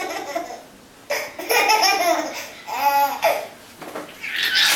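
A small child laughing hard in repeated bursts, with short lulls between: one burst about a second in, another around three seconds in.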